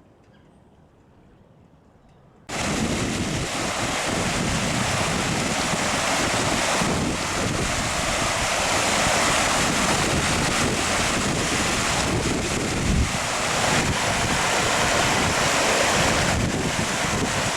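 Loud steady rushing of floodwater, with wind buffeting the microphone; it starts abruptly about two and a half seconds in.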